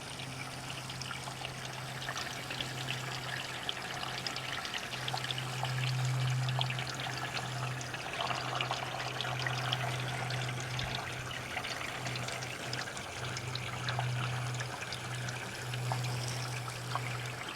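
Water running and trickling off a roof into a gutter fitted with an Alu-Rex Double Pro gutter guard, with steady splashing and dripping. The water is put on to test the guard, and it flows in with no overflow. A steady low hum runs underneath, cutting out briefly a few times.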